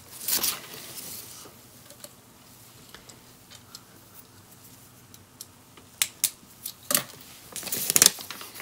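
Hard plastic LEGO Technic parts clicking and rattling as pieces are picked out of a loose pile and a pin is pushed into the model. A few clicks near the start, a quiet stretch, then a cluster of sharp clicks in the last three seconds.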